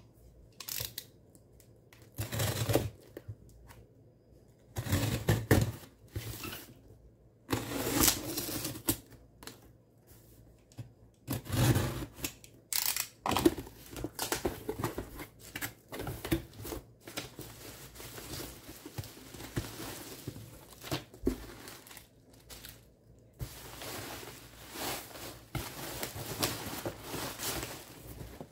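Cardboard shipping box being opened by hand, with irregular bursts of tearing and scraping as packing tape comes away and the flaps are pulled back. Plastic bubble wrap crinkles near the end.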